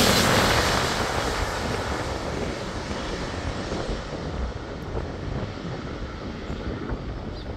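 Jet engine noise of an Airbus A321neo airliner fading as it flies away on final approach, the high hiss dying out first and a low rumble lingering.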